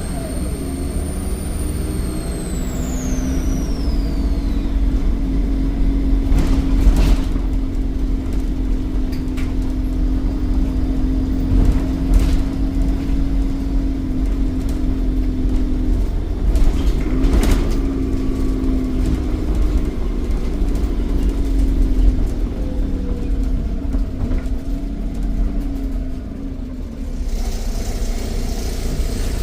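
Volvo D7E 7.1-litre diesel of a Wrightbus Eclipse bus running on the move, its high turbo whistle falling away over the first few seconds. A steady engine drone follows, shifting in pitch about halfway through, with a few short knocks and rattles and a hiss starting near the end.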